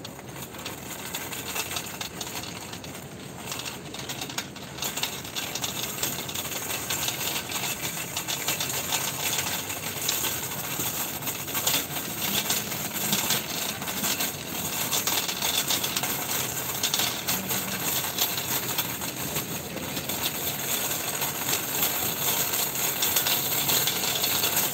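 Shopping cart rolling over a tiled supermarket floor, its wheels and wire-grid basket rattling and clicking continuously, getting louder over the first few seconds.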